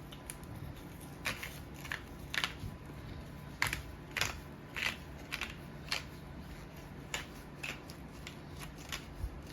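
Himalayan salt grinder being twisted over raw meat, crunching out salt in a series of short gritty bursts, roughly two a second.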